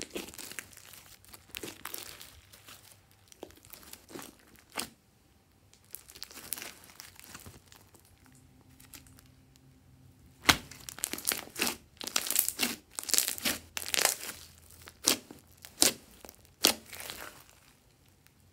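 Glossy slime being kneaded and stretched by hand, making sticky crackling and squelching with sharp pops as trapped air bursts. A quieter stretch in the middle gives way to a rapid run of loud pops in the second half.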